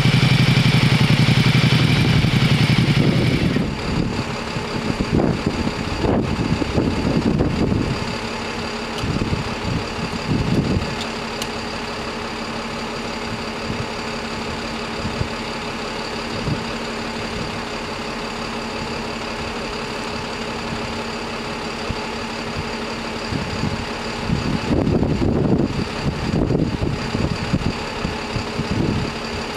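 A motor vehicle engine idling steadily, with a louder engine sound that drops away about three and a half seconds in and a few swells in level later on.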